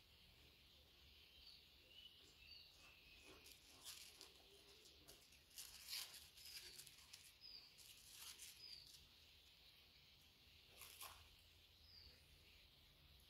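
Faint crackling and crunching of thin round potato crisps being pulled apart and bitten, in several short bursts, loudest about six seconds in. Small birds chirp faintly in the background.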